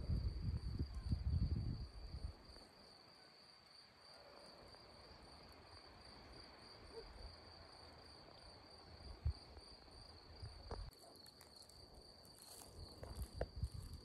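A cricket trilling steadily at one high pitch throughout. Low rustling and handling noise covers the first two seconds and comes back near the end, with a couple of faint clicks in between.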